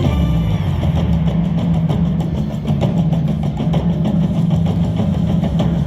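Loud, steady low droning hum of casino floor background noise around a slot machine.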